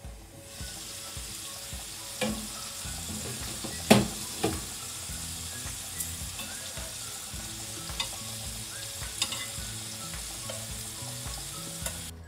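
Marinated chicken pieces frying in oil in a pan: a steady sizzle with scattered sharp pops and crackles, the loudest about four seconds in.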